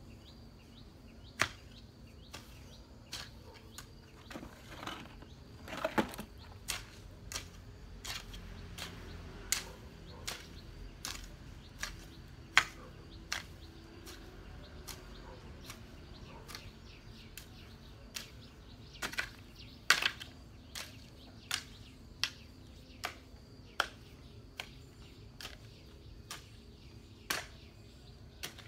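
Hoe blade chopping into garden soil in a rough rhythm of about one sharp strike a second, some strikes louder than others.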